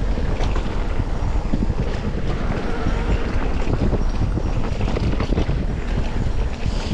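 Wind buffeting the microphone, loud and steady, with many small rattling knocks over it.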